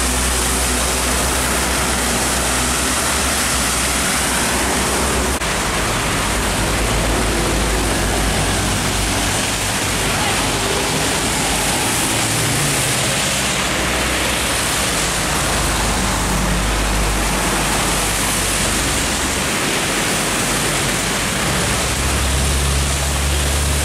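Heavy rain and traffic on a wet highway: a steady hiss of rain and tyre spray, with the low drone of heavy trucks' engines that swells and fades several times as they pass.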